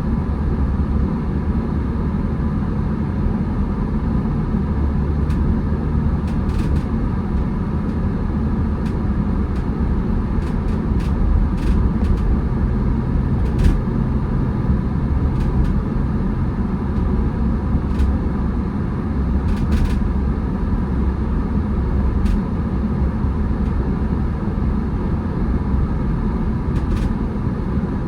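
A car driving: a steady low rumble of engine and tyre noise, with a scattering of short faint ticks.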